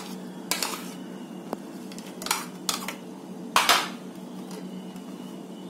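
A steel spoon scraping and knocking against a plastic plate, pushing chopped vegetables off into a glass bowl, in about five short scrapes. The longest and loudest comes a little before four seconds in, over a steady low hum.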